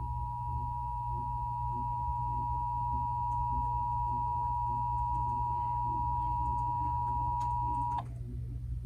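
Emergency Alert System two-tone attention signal (853 and 960 Hz sounded together) heard over a radio broadcast, a steady piercing dual tone that cuts off suddenly about eight seconds in, leaving a low hum. It is the alert tone of a required monthly EAS test, announcing the test message that follows.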